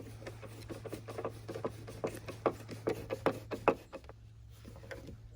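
Hand socket ratchet clicking in short, uneven strokes as a nut is run down onto a hatch window hinge. The clicks stop a little before the end, over a steady low hum.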